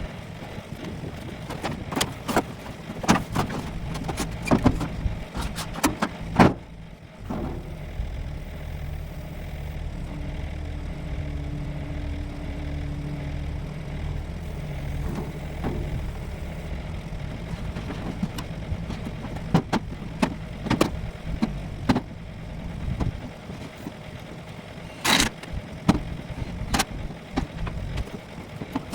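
An engine running steadily, with sharp knocks and clicks over it. The engine sound drops away about 23 seconds in, leaving scattered knocks, the loudest of them near the end.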